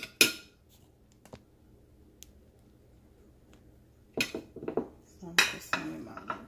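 Serving utensil clinking and scraping against a glass baking dish and a bowl as chicken and rice is dished up: one sharp clink at the start, then a run of clinks and scrapes over the last couple of seconds.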